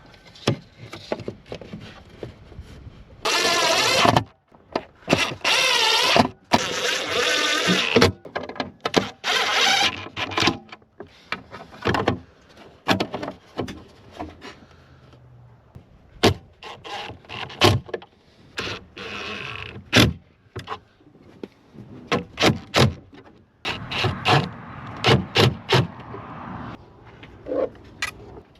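A small electric motor whirring in short bursts of about a second, several times over, with many sharp clicks and knocks of parts being fitted in between, as the truck's side mirror is put back together.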